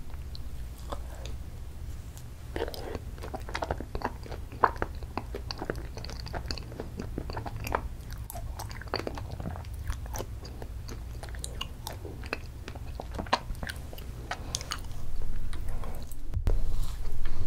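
Close-miked mouth sounds of eating ice cream: many small, sharp wet clicks and smacks of chewing and swallowing a spoonful. Near the end the plastic spoon digs into the ice cream in the paper cup.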